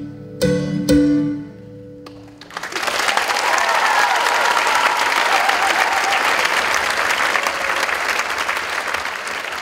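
The last plucked-string notes of the dance music ring out and fade, then about two and a half seconds in an audience breaks into steady applause.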